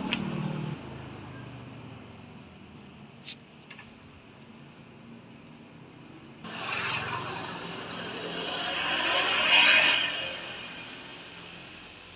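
Passing road traffic. One vehicle fades out in the first second. Another comes in about halfway, swells to a peak near the end and then fades.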